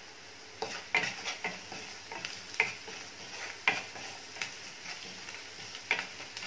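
Chopped onions frying in oil in a metal kadhai, sizzling steadily, while a wooden spatula stirs them, scraping and knocking against the pan in about eight irregular strokes. This is the onion tempering for phodnicha bhat being mixed after turmeric and salt go in.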